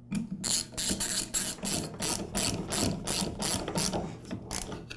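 Ratchet wrench clicking rapidly, about five clicks a second, as the bolt holding the cooling fan onto the compressor motor's shaft is run in.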